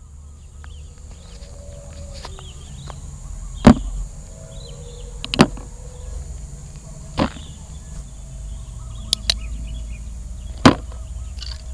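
Several sharp knocks and clacks, about six in all, spaced a second or two apart, as hard objects are set down one by one on a plastic board, over a low steady rumble.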